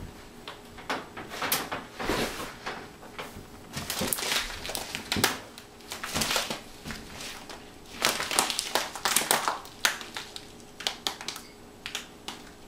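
A bag of flax seeds crinkling and rustling as it is turned over and handled, in irregular bursts of crackling.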